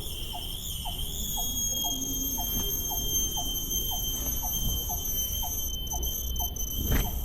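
Rainforest insects giving a steady high-pitched drone, with a short, lower chirp repeating about twice a second underneath. There is a single knock near the end.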